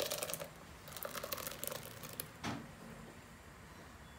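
Thick blended tomato purée pouring from a steel pot into a fine mesh strainer: faint wet splatting and small crackles, with a soft knock about two and a half seconds in.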